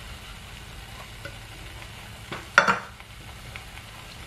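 Tuna filling sizzling gently in a frying pan while a metal spoon stirs it, with one sharp clack about two and a half seconds in.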